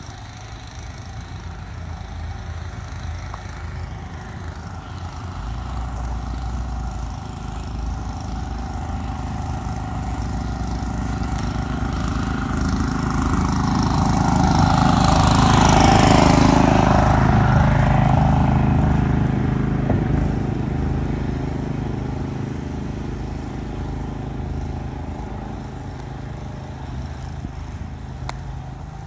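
Walk-behind snowblower engine running while clearing a snowy sidewalk, growing steadily louder as it comes near, loudest about halfway through, then fading as it passes.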